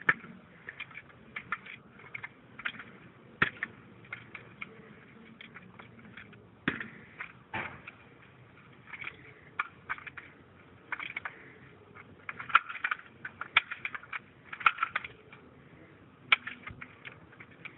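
Clicks, knocks and light rattles of a rifle being handled and swung through drill manoeuvres. Scattered sharp knocks, a few louder ones about three and a half, six and a half and seven and a half seconds in, and a busier run of rattling clicks from about twelve to fifteen seconds in.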